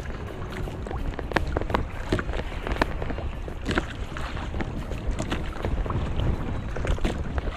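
Monofilament fishing net being hauled hand over hand into a small boat: wet net rustling, with many sharp clicks and taps as it comes aboard, over a steady low rumble of wind on the microphone.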